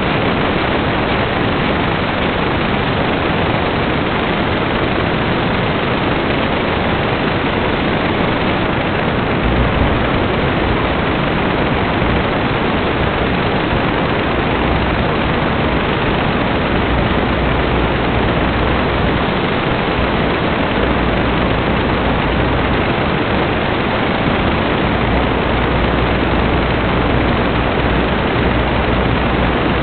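Loud, steady static hiss from an analog FPV video receiver that has lost its signal, with a low hum underneath that grows stronger after about ten seconds.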